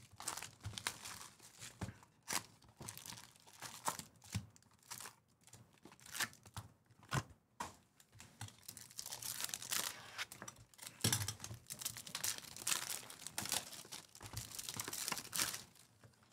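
Foil trading-card pack wrappers crinkling and tearing as the packs are handled and ripped open by hand. It is a string of sharp crackles and rustles, busier in the second half.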